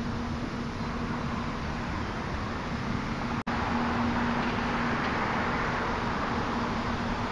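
Lawn sprinklers spraying water with a steady hiss, over a low steady hum. The sound cuts out for an instant about three and a half seconds in, then the hiss comes back a little brighter.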